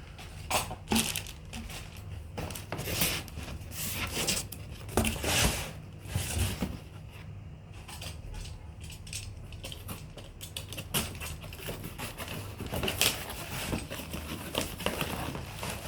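Fan packaging and parts being handled and unpacked: irregular crinkling and scraping with scattered knocks and clicks, over a steady low background hum.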